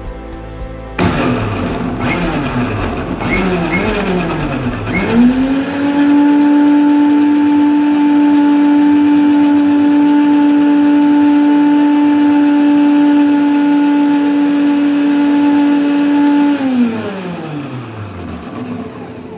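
Electric mixer grinder blending chunks of muskmelon into juice: the motor is started in a few short pulses, then runs steadily at full speed with an even hum for about eleven seconds. It is then switched off and winds down with a falling whine.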